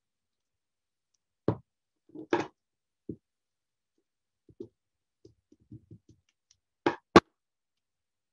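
Tabletop handling of a roll of duct tape and scissors while a strip of tape is cut: a string of knocks and clicks, a short rasp about two seconds in, and two sharp clicks close together near the end.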